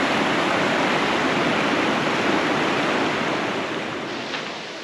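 Shallow mountain river rushing over boulders and small rapids: a steady rush of water that fades down over the last second or so.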